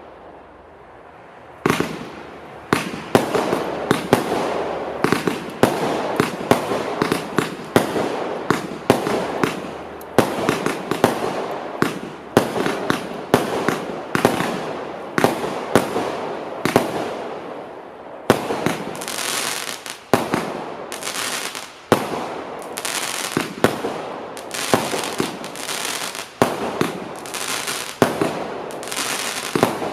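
Startrade Feuerzauber compound firework cake firing: a dense, rapid series of shots and bursts with crackling between them. It resumes after a short lull about a second and a half in.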